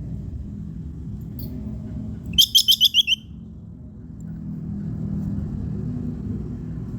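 Squirrel chattering call (the 'kekes' call): a loud, quick run of about seven sharp, high, slightly falling notes lasting under a second, over a steady low background rumble.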